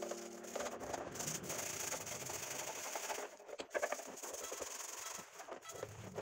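A stiff bristle brush scrubbing a painted iron scale part submerged in soapy water, with wet sloshing and occasional small knocks of the metal.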